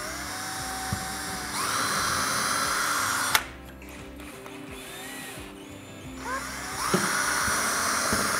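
Cordless drill spinning up with a rising whine and running steadily, cutting off with a sharp click about three and a half seconds in; it spins up again past six seconds and runs steadily once more, working at a metal wall clip.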